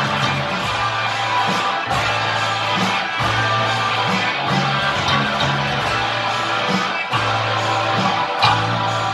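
Live rock band playing: electric guitars strummed over a bass guitar line that changes note about once a second.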